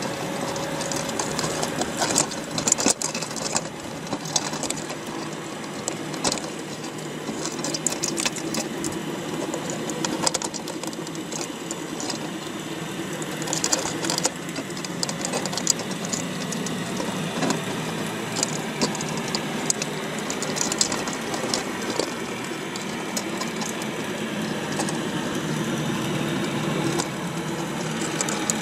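Underwater sound inside a wire crab trap: a steady low hum under many irregular clicks and scrapes as the crabs' shells and legs knock against each other and the wire mesh.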